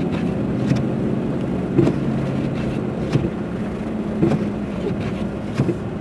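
A car driving on a snowy road, heard from inside the cabin: a steady engine and road drone, with short knocks about once a second.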